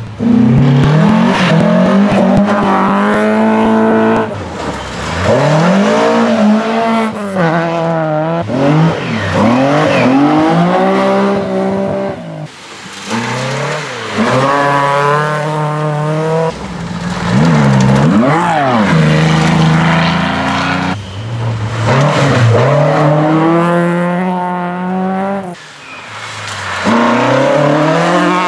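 Historic rally cars, among them a Volvo 240 and a Ford Escort, passing one after another at speed on a gravel stage. Each engine revs hard, its pitch rising and falling with gear changes and lifts, over the rush of tyres on loose gravel, with brief dips between cars.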